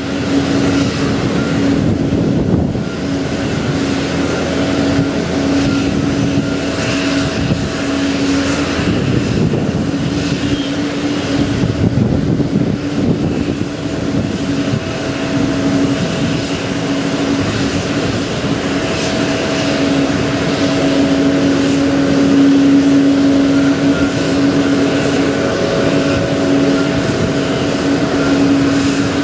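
Steady aircraft turbine noise on an airport apron: a continuous rumble with a constant hum and fainter high whines.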